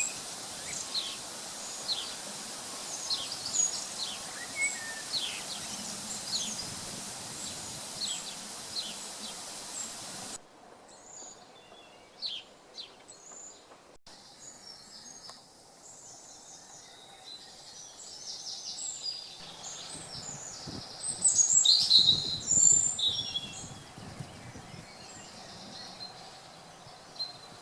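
Woodland birds singing and chirping in quick short notes over a steady rushing background, which cuts off abruptly about ten seconds in. After that the birdsong continues more thinly, with a louder burst of mixed noise and calls about three-quarters of the way through.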